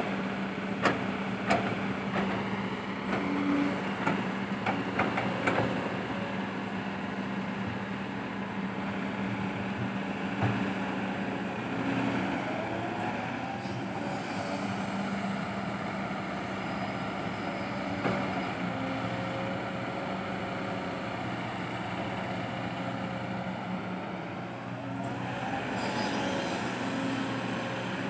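Kobelco SK200-8 excavator's diesel engine running steadily under load while the machine digs and dumps soil. Sharp knocks of the bucket and falling dirt come in the first few seconds.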